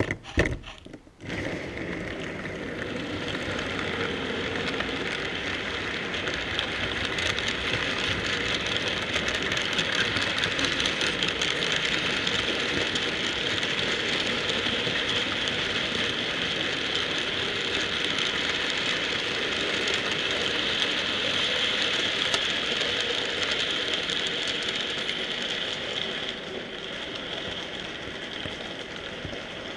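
Model freight train running past on the layout: a steady whirring rattle of small wheels and motor on the track that builds over the first few seconds, holds, and fades near the end as the train draws away. A few sharp knocks in the first second.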